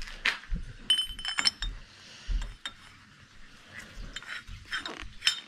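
Steel collet and collet holder clinking and tapping together as the collet is fitted into the holder and the parts are set on the lathe carriage: a scattered series of light metal clinks, one with a brief ring about a second in.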